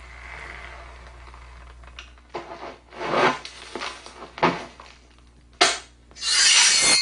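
Rough rubbing or rasping strokes, about six of them at an uneven pace, starting about two seconds in; the last one, near the end, is the longest and loudest.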